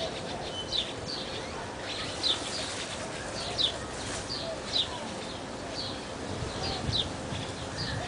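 Outdoor birds chirping: short, high chirps repeating about once or twice a second over a steady background hiss.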